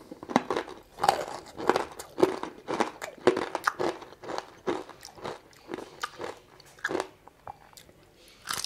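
Close-up crunching and chewing of crispy breaded fried chicken skin: a quick, irregular run of crunchy bites and chews, with a fresh bite near the end. The crackle is the sign of a very crisp fried coating.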